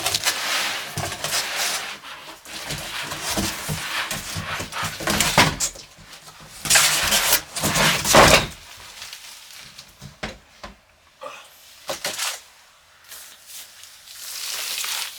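Monitor packaging being handled: dense rustling and scraping of box material for about eight seconds, loudest near the middle, then a few separate knocks and clicks.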